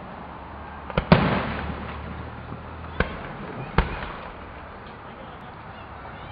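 Aerial fireworks shells bursting: two reports close together about a second in, the second the loudest and trailing off in a crackle and rumble, then single bangs about three and nearly four seconds in.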